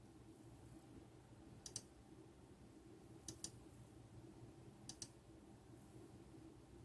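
Computer mouse clicks, a few isolated ones: a single click, a quick double click, then another, over a faint low room hum.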